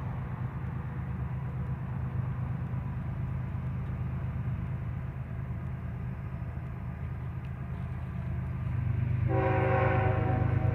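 Approaching CN freight train led by a GE ES44AC diesel locomotive, a steady low rumble as it comes on. About nine seconds in, the locomotive's horn starts to blow, a held chord of several notes that is the loudest sound.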